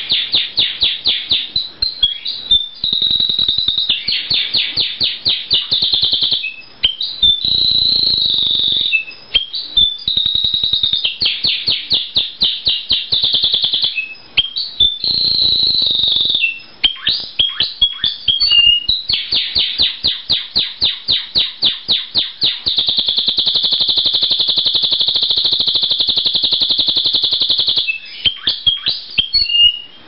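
A male domestic canary singing long phrases of rapid repeated chop notes and quick trills, broken by a few short pauses. In the second half he holds a very fast roll for about five seconds, the strong metallic bell roll of his song.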